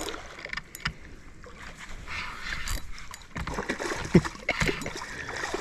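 Water splashing beside a small john boat as a hooked redfish is brought in close, with scattered knocks and clicks from the boat and tackle.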